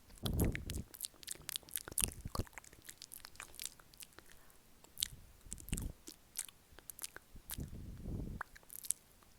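Close-miked ASMR mouth sounds: quick, irregular wet clicks and smacks of lips and tongue, with a few duller low puffs in between.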